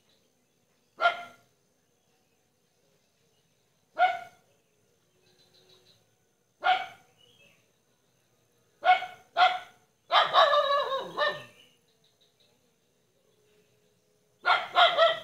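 A dog barking off and on: single barks a few seconds apart, then a quick pair, a longer run of barking about ten seconds in, and three quick barks near the end.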